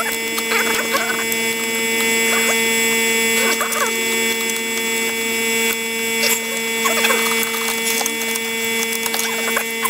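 A steady buzzing hum with several overtones, with a few short, faint chirps that rise and fall.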